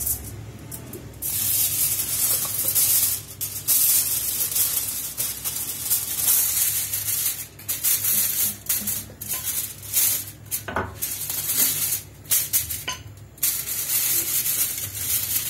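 Sheet of aluminium foil crinkling and rustling as it is folded over and pressed flat by hand, then worked with a wooden rolling pin. The crackle comes in stretches with short pauses.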